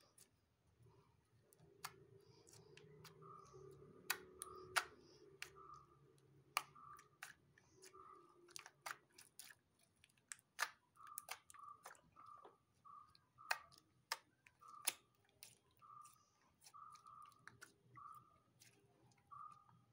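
Slime being kneaded and squeezed by hand, giving irregular sticky clicks and small pops as air pockets burst.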